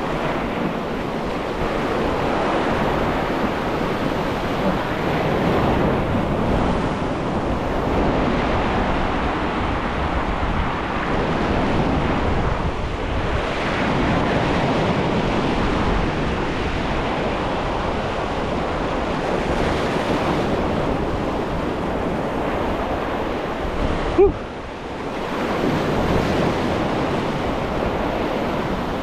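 Sea waves breaking and washing over shoreline rocks, a steady surf that swells and eases, with wind buffeting the microphone. One brief sharp knock near the end.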